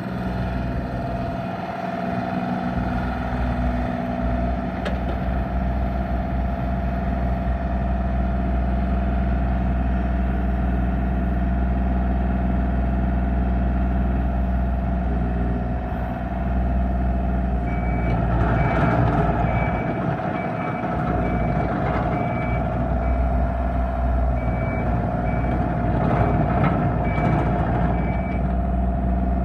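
Bobcat E32 mini excavator's diesel engine running steadily with a constant whine. About two-thirds of the way in, the machine works harder and a warning alarm starts sounding in repeated high beeps.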